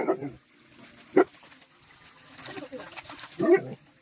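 Dogs vocalising in play: a single sharp bark about a second in, with shorter pitched calls near the start and near the end.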